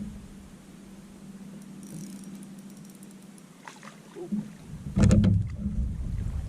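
Knocks and rattling of gear being handled in a plastic fishing kayak, with a loud hollow thump about five seconds in.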